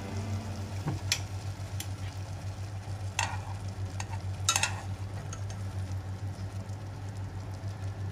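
Instant noodles boiling in a saucepan of water, bubbling with a quick, even pulse over a steady low hum. Chopsticks stir the noodles, with a few sharp clicks and scrapes against the pan.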